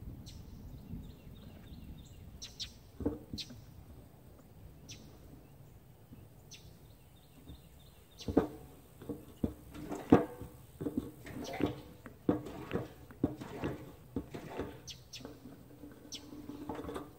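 Hand-operated plastic transfer pump being worked to draw diesel out of a tractor's fuel tank: from about eight seconds in, a quick run of plastic clacks and squeaks, two or three strokes a second. Birds chirp now and then throughout.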